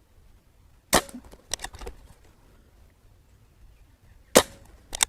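Barra 1100Z .177 PCP air rifle fired twice, one sharp report about a second in and another near the end. Each shot is followed within a second by a few fainter clicks and knocks.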